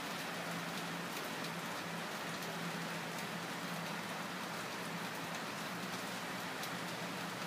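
A steady hiss with a faint low hum and scattered faint ticks.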